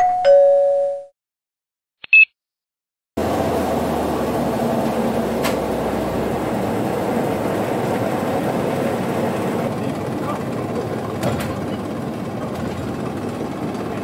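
A two-note ding-dong chime from a subscribe-bell animation, then a short high blip. From about three seconds in, an engine runs steadily at the bandsaw sawmill truck, with a couple of faint knocks.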